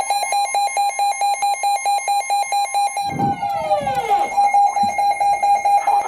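Midland NOAA weather radio sounding its alert for a flash flood warning: a loud, rapid pulsing beep, about six or seven beeps a second. About halfway through, a falling sweep and a low rumble sound briefly over the beeping.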